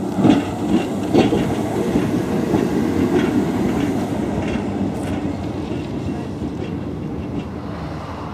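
Kirnitzschtalbahn electric tramcar rolling past on its track: a low rumble with scattered clicks from the wheels on the rails. It is loudest in the first couple of seconds and fades steadily as the tram moves away.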